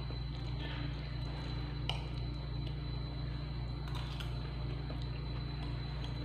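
A steady low hum underneath, with a few faint clicks of a metal spoon against a ceramic bowl as rice is scooped up, about two seconds in and again about four seconds in.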